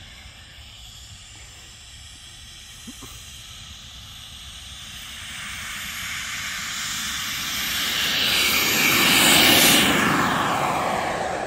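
Kingtech K120 G2 kerosene turbine of a Starjet model jet at takeoff thrust, a jet hiss and whine growing louder as the plane runs down the strip toward the microphone. It is loudest about nine and a half seconds in as the jet passes close, then the pitch falls as it goes by.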